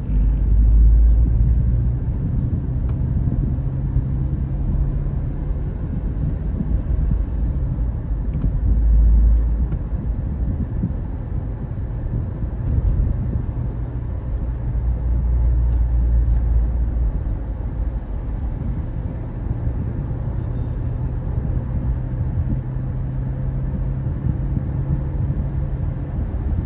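Low rumble of a car being driven, heard from inside the cabin, with a steady engine hum; the rumble swells louder three times.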